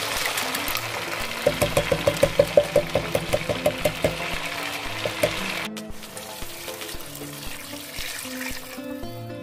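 Canned chopped tomatoes glugging out of the tin into a hot pot of browned meat, a quick run of about five glugs a second over a steady sizzle, which cuts off suddenly midway. Water is then poured in near the end, under soft background music.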